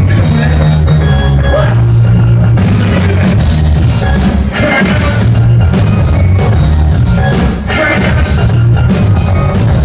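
Live band playing loud, bass-heavy music with drums and guitar, heard through a crowd recording with the low end dominating.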